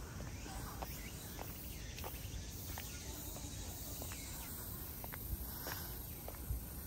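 High-heeled shoes clicking on stone paving and stone steps while walking uphill, a sharp click about twice a second, over a steady low rumble.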